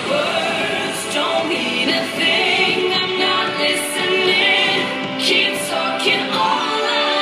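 A recorded pop song with a singing voice, played as backing music for a solo dance routine.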